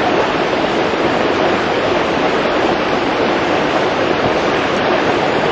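Steady, even rushing of a fast-flowing river.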